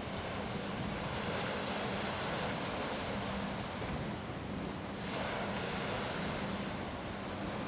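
Sea surf breaking and washing on the shore, swelling twice, with wind buffeting the microphone and a steady low hum underneath.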